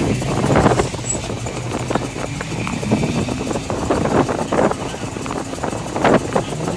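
Off-road truck engines running as a lifted pickup works through deep mud, with a steady low engine hum under scattered short knocks and crackles.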